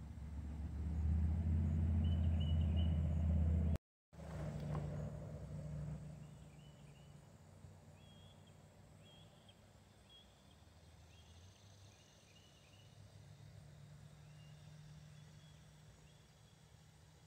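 Low engine rumble of a passing vehicle, loud for the first few seconds, cut off for a moment about four seconds in, then fading to a faint hum. Faint short bird chirps repeat through the middle.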